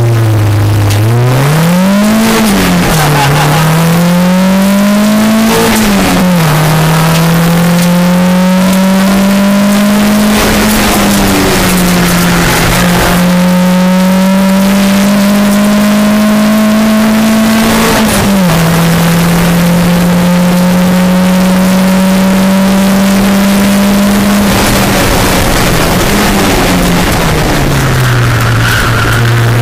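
VW Golf Mk2 race car's engine on individual throttle bodies, heard from inside the cabin, revving hard: the revs climb and drop sharply twice in the first seven seconds as it changes up, then climb slowly and hold at high revs. The revs dip about eighteen seconds in and fall away near the end as the car slows.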